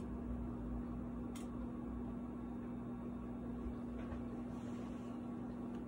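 Steady low electrical hum over quiet room noise, with a faint click about one and a half seconds in.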